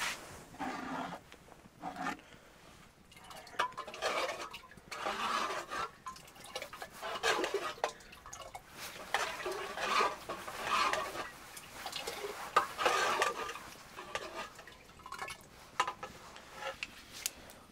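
A metal ladle stirring and scooping inside a metal kettle of liquid: repeated clinks and scrapes of metal on metal with sloshing, in irregular strokes about once a second.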